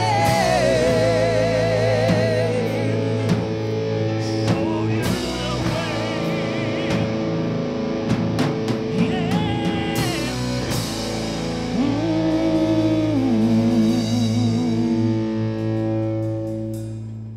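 Heavy metal band playing live: the closing bars of a song, with sung and guitar lines over a held chord, drums and cymbal hits. The final chord rings out and dies away near the end.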